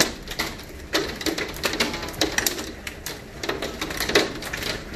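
Hailstones striking the window and house in irregular sharp clicks and knocks, a few of them louder, like stones hitting the window.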